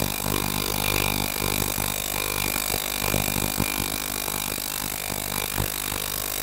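Ultrasonic cleaning tank running with a part immersed: a steady electric hum under a high hiss, with scattered crackles throughout.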